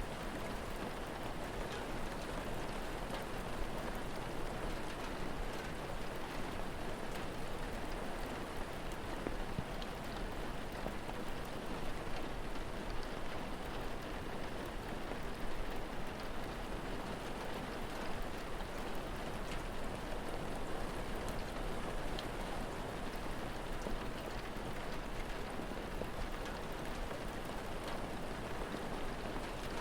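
Steady rain falling in an even hiss, mixed with a crackling fire's faint, scattered small pops.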